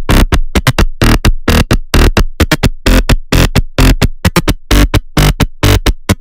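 Electronic dance music with a fast, loud, choppy beat of stuttering hits.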